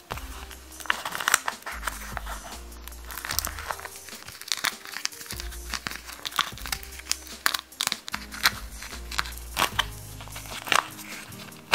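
Homemade pop-it fidget toy's crinkly plastic-film domes squashed and popped by fingers, giving a string of irregular crackles and crinkles, over background music.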